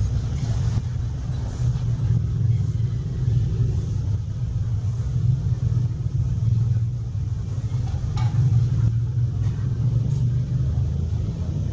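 Steady low rumble, with a faint short sound about eight seconds in.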